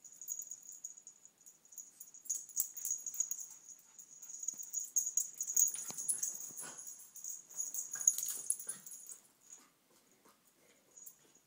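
Two small dogs at play: a run of short scuffling sounds and small dog noises, dying down after about nine seconds.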